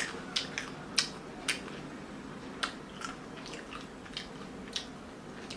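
A person chewing a mouthful of tomato-flavoured almonds: about ten sharp, irregularly spaced crunches.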